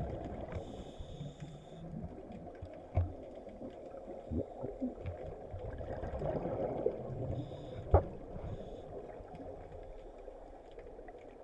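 Underwater noise picked up through a diving camera's housing: a steady, muffled wash of water with scattered knocks. The loudest is a sharp knock about eight seconds in.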